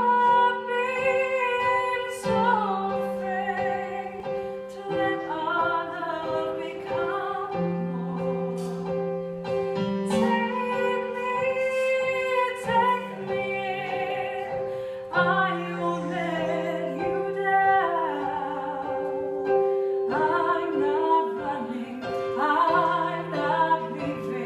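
A woman singing a slow song with piano accompaniment, the piano holding sustained chords and bass notes under her wavering melody.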